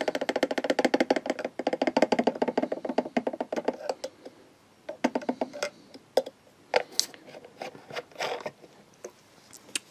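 Rapid rattling clicks, about ten a second, of a paintbrush being swished in a pot of Tamiya X-20A acrylic thinner and knocking against the pot, cleaning the brush for a colour change. After about four seconds they give way to scattered light taps and clicks.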